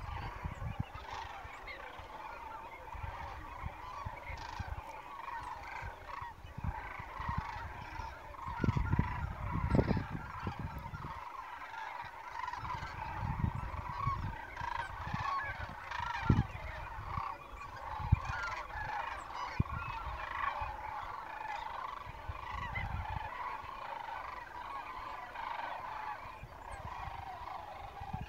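A large flock of geese calling continuously, many honks overlapping into a dense chorus. Low rumbles of wind on the microphone come and go, strongest about nine seconds in.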